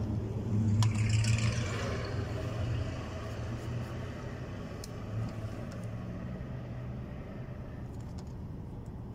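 A car engine running with a low steady hum, louder for the first couple of seconds with a rush of hiss about a second in, then settling to an even level.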